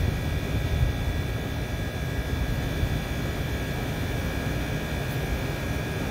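Crane engine running with a steady low rumble as it lowers a condenser unit by hook, with a faint steady high whine above it.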